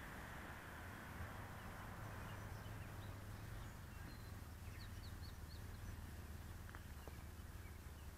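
Faint outdoor rural ambience: a steady low background rumble, with a few short, high bird chirps a little past the middle.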